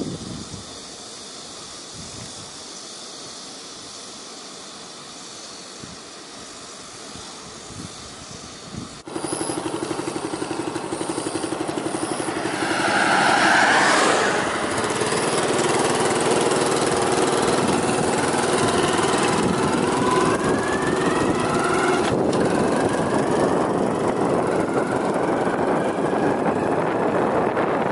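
Engine of a moving road vehicle, heard from on board with road and wind noise. It starts suddenly about nine seconds in and rises in pitch as the vehicle speeds up, about twenty seconds in. Before that there is only a quieter, steady outdoor hiss.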